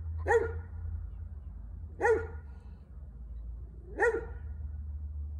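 A dog barking single barks spaced about two seconds apart: one just after the start, one about two seconds in and one about four seconds in.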